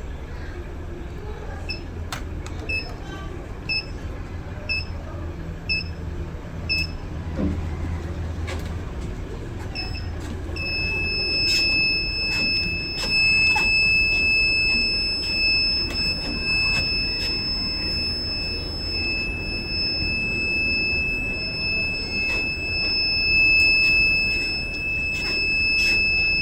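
Treadmill console beeping about once a second, then holding one steady unbroken high beep from about ten seconds in, like a heart monitor's flatline. A low hum underneath stops shortly after the long tone begins.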